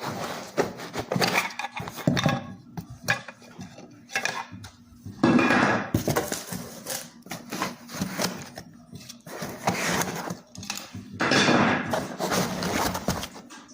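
A cardboard box and its packaging being handled and opened: irregular scrapes, clicks and knocks, with longer tearing or sliding noises about five seconds in and again near the end.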